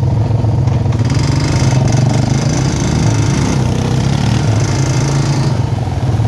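ATV (four-wheeler) engines running steadily as they ride along the trail, the pitch wavering a little about halfway through.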